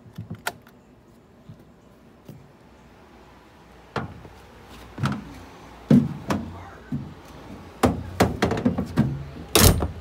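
Faint clicks of a key in the bus door's deadlatch lock, then after a few quiet seconds a run of knocks and thumps from the one-piece school bus door being worked, with the loudest bang near the end.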